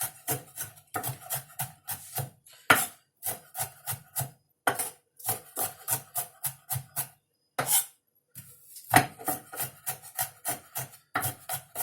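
Kitchen knife mincing shallots and garlic on a cutting board: quick regular chopping strokes about three a second, with a few short pauses and several harder knocks.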